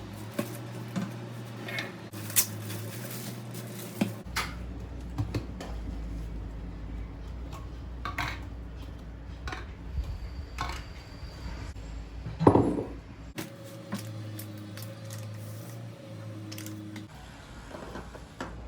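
Kitchen clatter: dishes and utensils clinking and knocking in a string of separate hits over a low background hum, with a heavier knock about twelve seconds in.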